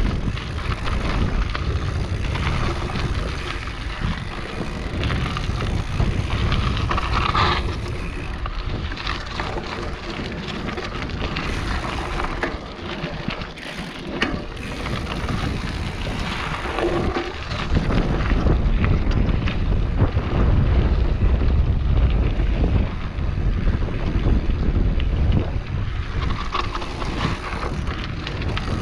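Mountain bike descending a dirt trail at speed: wind rushing over the microphone and tyres rumbling on the ground, with frequent knocks and rattles as the bike runs over bumps. It gets louder about two-thirds of the way through.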